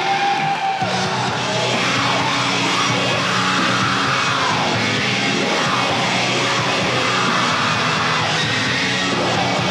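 Extreme metal band playing live, heard through a lo-fi mobile-phone recording made in the audience, with yelled vocals over the band.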